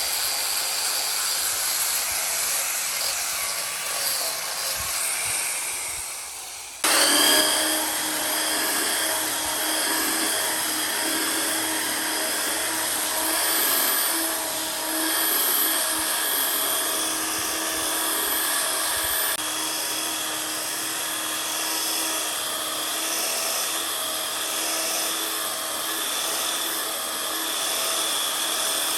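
Handheld electric power tool running with a steady high whine. It fades off, then cuts in again abruptly about seven seconds in and runs steadily on.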